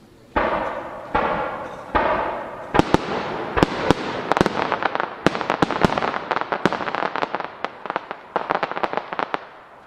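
Rapid-fire aerial fireworks: three loud reports about a second apart, each trailing off, then a quick run of sharp bangs and crackling bursts for several seconds that stops just before the end.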